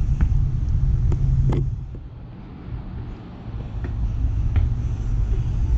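Low outdoor rumble that eases off about two seconds in and builds again a second later, with a few faint ticks.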